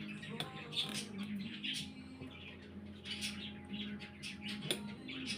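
Birds chirping repeatedly in the background over a steady low hum, with a couple of sharp light clicks, one about half a second in and one near the end.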